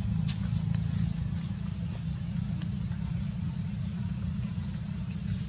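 A steady low rumble, with a few faint clicks over it.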